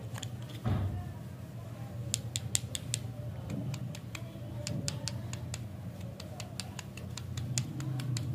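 A run of small, sharp clicks and crackles from hands handling a paper candy wrapper and a lollipop on a plastic stick, with one louder thump about a second in.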